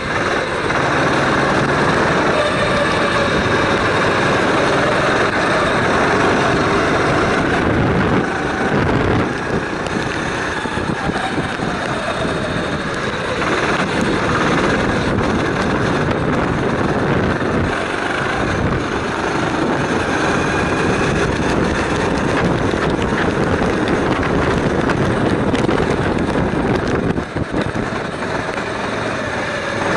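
Kart engine running at speed, heard from on board the kart, its pitch dipping and rising again as the driver lifts off and accelerates through the corners.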